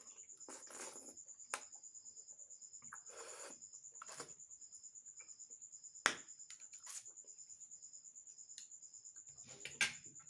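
Cricket trilling steadily in a high-pitched, fast-pulsing chirp. Over it come a few short eating noises of someone eating noodles, and two sharp clicks about six seconds in and near the end.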